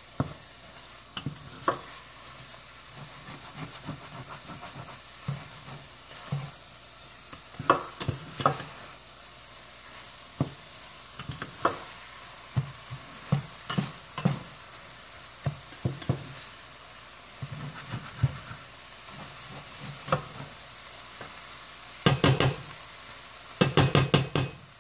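Spatula stirring and scraping scrambled eggs and chicken sausage around a metal frying pan, in irregular strokes over a faint steady sizzle. Near the end comes a quick run of closely spaced scrapes and knocks.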